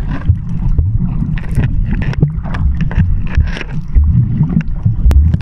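Water churning and sloshing around a camera held at or just under the surface by a snorkeler. It comes through as a loud, uneven low rumble with many scattered sharp clicks.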